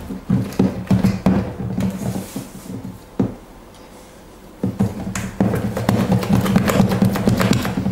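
Plastic spatula scraping and slapping macaron batter around a stainless steel bowl in quick repeated strokes, folding the almond meringue until it turns glossy and runny. The strokes stop for about two seconds in the middle while the batter is lifted, then start again.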